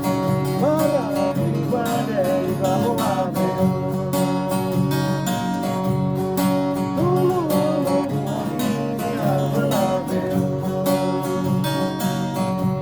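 String band music: acoustic guitars strummed in a steady rhythm, with sung lines coming in over them about a second in and again past the middle.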